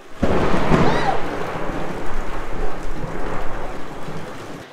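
Thunderstorm: a loud thunderclap breaks in suddenly and rumbles on over heavy rain, then cuts off abruptly.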